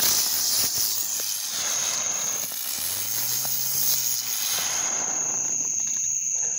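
Vintage firework burning on the ground, spraying sparks with a steady hiss that stops about five seconds in. Crickets chirp steadily throughout.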